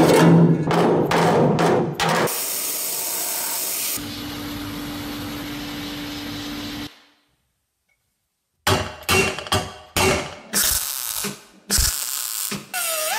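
Car body metalwork: a run of sharp metal knocks over a low drone, then a steady hissing spray with a hum joining it partway. After a short silence comes a string of short, sharp welding or striking bursts, each dying away.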